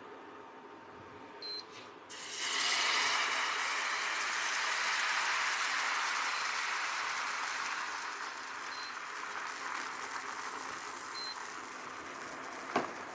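Thin blini batter sizzling as it is ladled into a hot frying pan: a hiss that starts suddenly about two seconds in and slowly dies down. A short clank near the end as the pan is set back down on the hob.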